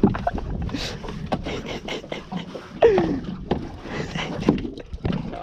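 Knocks and thumps of gear and a landed shark being handled aboard a small fishing boat, with a short falling vocal exclamation about three seconds in.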